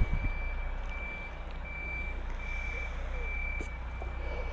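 Evenly repeating electronic beep at one steady high pitch, like a vehicle reversing alarm, over a steady low rumble; a brief low thump at the very start.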